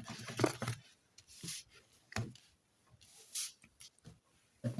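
Tarot cards being handled and laid on a table: a short run of rustling and tapping, then a few brief separate card rustles and taps.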